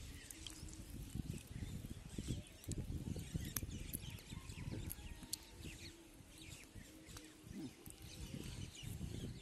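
Light splashing of water around hands and a gill net as small fish are worked free of the mesh, over uneven low rumbling noise, with scattered clicks and faint high chirps.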